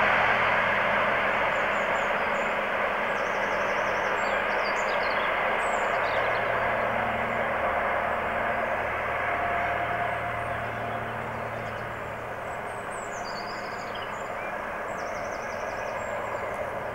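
An English Electric Class 50 diesel-hauled passenger train running away into the distance: a steady rush of wheels on rail with a faint low engine drone, slowly fading. Birds chirp faintly now and then.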